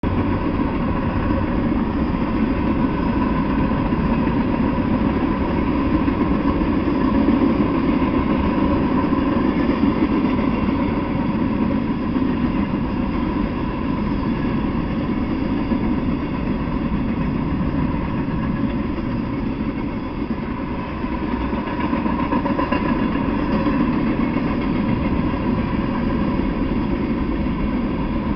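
Freight train of covered hopper cars rolling past, a steady, unbroken noise of wheels on the rails.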